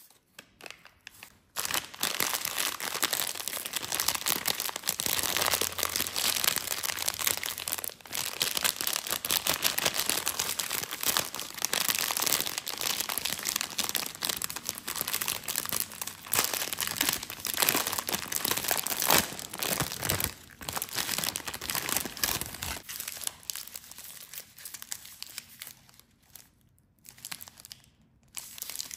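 Crinkly plastic snack packaging being crumpled and torn open by hands in disposable plastic gloves, close up. The loud, dense crinkling starts about a second and a half in and gives way to softer, sparser rustles for the last several seconds.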